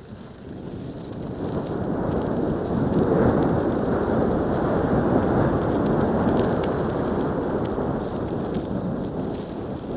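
Wind rumbling over a mountain biker's helmet-camera microphone as the bike rolls along a sandy, gravelly track. It builds over the first couple of seconds as speed picks up, then stays steady, with faint grit ticks from the tyres on the loose surface.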